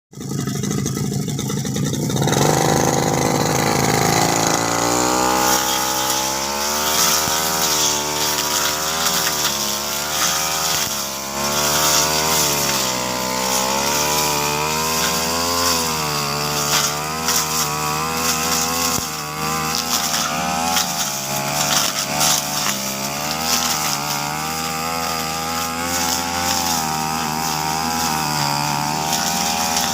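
Two-stroke brush cutter engine running, its pitch wavering up and down as the load changes while cutting grass.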